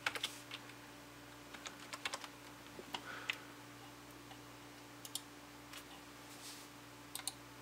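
Faint keystrokes on a computer keyboard, with a few mouse clicks: short, scattered clicks in small groups over a steady low hum.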